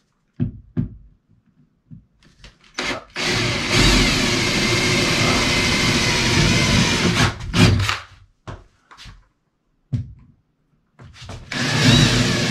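Cordless drill with a 5/16-inch bit boring holes through a wooden mounting board on the wall. It starts with a few short bursts, runs steadily for about four seconds from about three seconds in, and runs again near the end.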